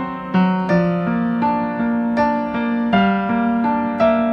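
Background piano music: a gentle melody of single notes and chords struck about two a second, each note fading away.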